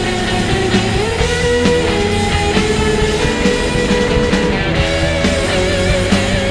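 Rock music with guitar; a high held note wavers near the end.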